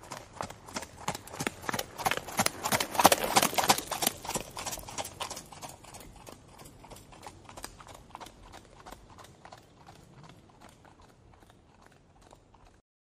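Horse hoofbeats clip-clopping in an even rhythm of several strikes a second, growing louder to a peak about three seconds in, then fading away as the horse passes and moves off.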